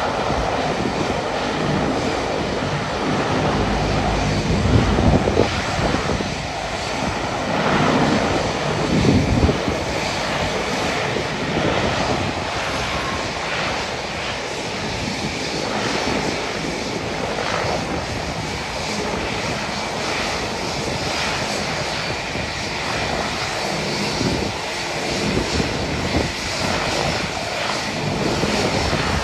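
DHC Dash 8-300 twin turboprop engines running steadily as the aircraft taxis, a continuous propeller and engine drone. Wind gusts on the microphone add low rumbles about five and nine seconds in.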